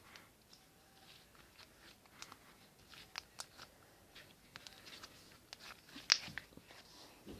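Soft homemade slime being squished and stretched by hand, giving scattered small sticky clicks and crackles, with one sharper pop about six seconds in.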